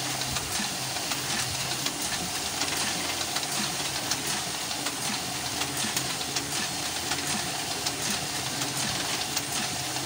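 A.B. Dick 385 small offset printing press running, a steady clattering hiss with many quick clicks from its mechanism.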